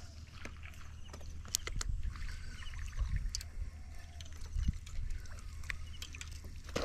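Quiet sounds of fishing from a small boat: a steady low rumble with scattered light clicks and knocks.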